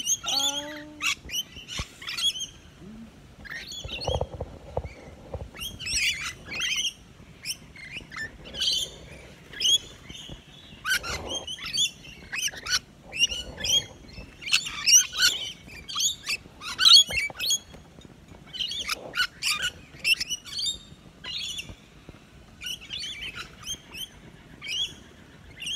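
A flock of rainbow lorikeets chattering as they feed: short, high-pitched calls in quick overlapping clusters, coming and going with brief lulls.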